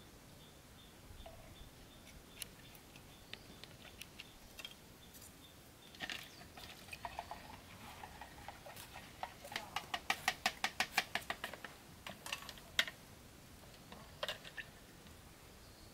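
Light clicking and knocking from a stick stirring liquid in a small plastic bucket, turning into a quick even run of ticks, about five or six a second, for a couple of seconds near the middle, then a few single knocks.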